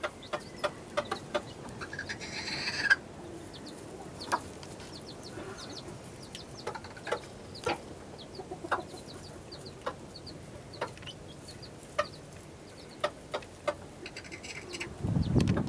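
Backyard chickens clucking in short, scattered calls, with a louder rising call about two seconds in. A low rumble comes in near the end.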